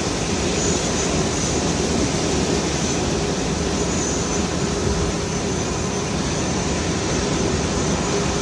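Airbus A380's four Rolls-Royce Trent 900 jet engines running at low taxi power: a steady rush and rumble with a faint high whine.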